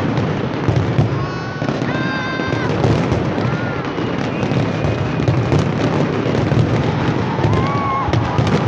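Large fireworks display going off in a dense barrage: continuous booms overlaid with rapid crackling bursts, with no pause.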